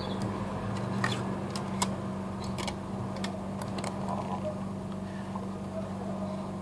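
Light clicks and taps of a smartphone's plastic frame being handled and fitted over the phone, several in the first four seconds, over a steady low hum.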